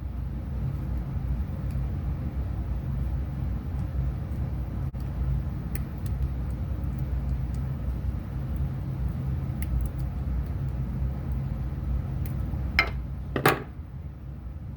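A steady low hum, with a few light handling clicks and, near the end, two sharp metallic snaps about half a second apart, the loudest sounds: copper wires being cut off with cutters.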